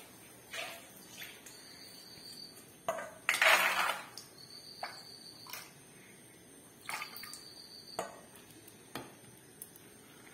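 Stainless steel pot and bowl knocking and clattering as they are handled, with a run of loud clanks about three seconds in. Between the knocks, water sloshes in the steel bowl as lentils are washed by hand.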